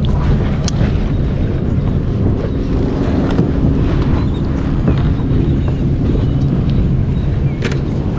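Wind buffeting the microphone on open water, a steady rumble with a low hum running underneath it. A few short clicks stand out, about a second in, near the middle and near the end.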